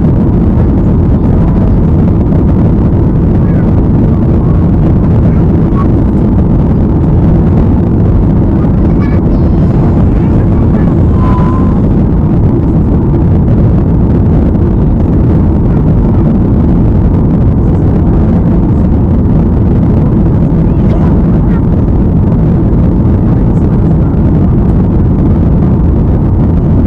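Loud, steady roar of a jet airliner's engines and rushing air, heard from inside the cabin as the plane climbs after takeoff, deep and even throughout. A short, faint high tone sounds about eleven seconds in.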